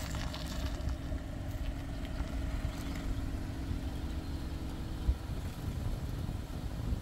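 Wind rumbling on the microphone over the steady hum of an idling car. The hum stops about five seconds in, at a short low thump.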